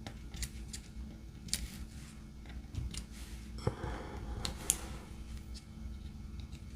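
Scattered faint clicks and taps of resin diamond-painting drills being picked up with a drill pen and pressed onto the canvas, over a low steady hum.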